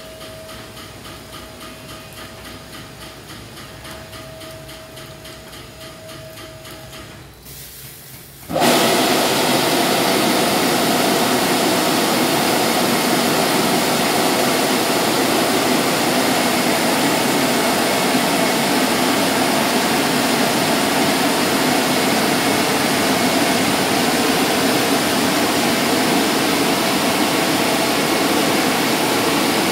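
Automatic rollover car wash machine: regular mechanical ticking with a steady whine, then about eight seconds in a loud, steady rush of high-pressure water spray starts abruptly and keeps going.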